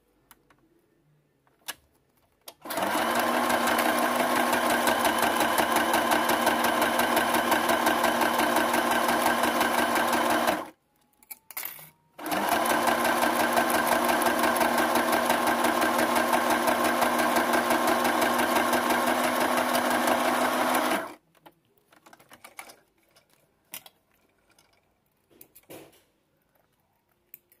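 Sewing machine stitching a straight seam at a steady speed, in two runs of about eight seconds each with a short stop between, then a few faint handling clicks.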